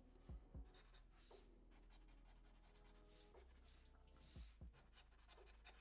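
Black marker pen scratching faintly across paper in a series of short strokes, inking stripes.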